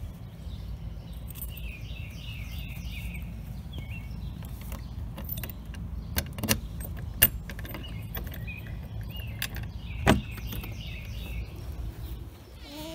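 A key clicking in a shed door's T-handle lock as it is turned, a few sharp metal clicks with the loudest about ten seconds in, over a steady low rumble.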